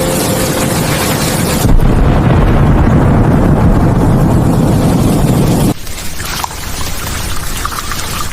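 Steady hiss of heavy rain, cut off abruptly about two seconds in by a loud, deep rumble. The rumble stops just as suddenly about four seconds later, leaving lighter rain with scattered drips.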